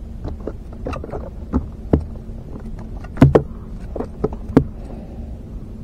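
Sharp knocks and taps as a small hooked fish thrashes on a crankbait and is handled over a foam cooler, about seven of them, the loudest a close pair just past three seconds in, over a steady low hum.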